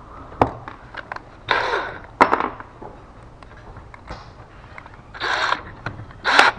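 A few sharp knocks and several short scraping noises, about half a second each, from hands working with tools and hardware.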